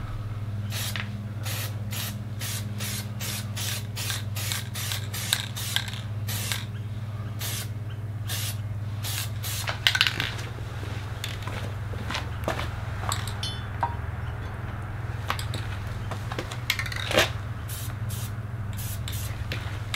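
Aerosol spray-paint can sprayed onto steel brackets in many short, quick spurts, about two or three a second, with a sharp knock about halfway through. A steady low hum runs underneath.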